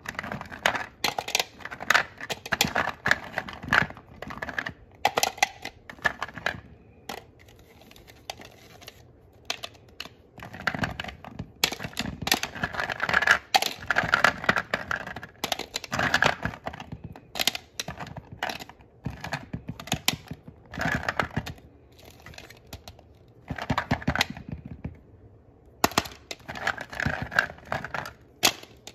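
Hollow plastic toy fruits clicking and clattering against each other and a plastic sorting tray as a hand rummages through the pile and drops them into the compartments, in irregular flurries of clicks with a couple of short lulls.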